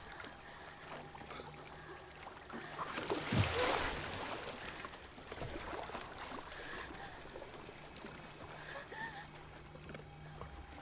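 Sea water lapping and trickling over a low steady drone, with a louder wash of water about three seconds in.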